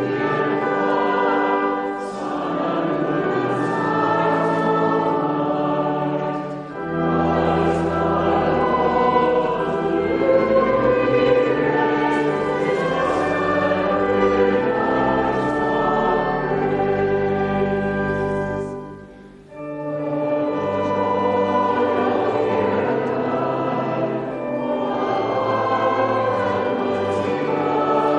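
Choir singing in long held phrases, breaking briefly about 7 seconds in and again near 19 seconds.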